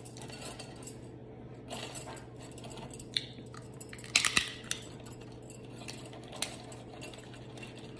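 Aluminium foil crinkling as cooked crab legs are broken apart by gloved hands, in scattered crackles and rustles; the loudest comes about four seconds in.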